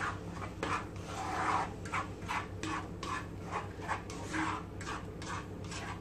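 A wooden spatula scrapes and stirs thick coconut-paste curry in a non-stick frying pan, in repeated rasping strokes about three a second, over a steady low hum.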